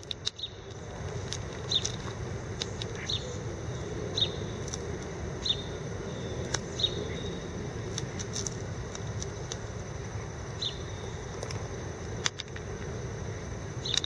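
A small bird repeating a short, slightly falling chirp every second or two, over a steady low rumble of distant city traffic, with scattered light clicks and taps.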